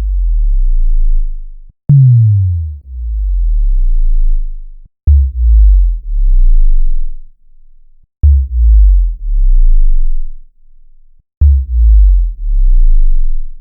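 Synthesized deep bass sound effect played four times, about every three seconds, each starting with a sharp click. The first slides down in pitch into a low rumble; the next three throb in three low pulses each.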